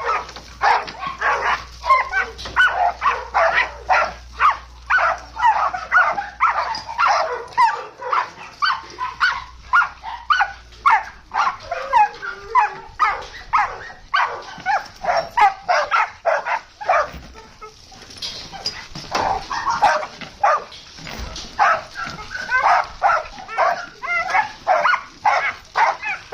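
A dog barking and yipping in a long run of short, rapid calls, about two to three a second, with a brief pause about two-thirds of the way through.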